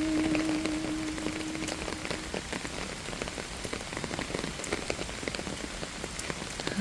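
Steady rain falling, with many small drops ticking on a surface. A held low note from the hymn lingers over it and fades out about two seconds in.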